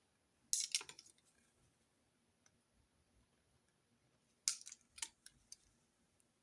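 Two short bursts of crisp clicks and rustles from stationery being handled during note-taking: one about half a second in, the other about four and a half seconds in.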